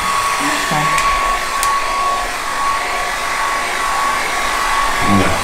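Hand-held hair dryer blowing steadily, with a thin steady whine over its rush of air, drying a kitten after its wash.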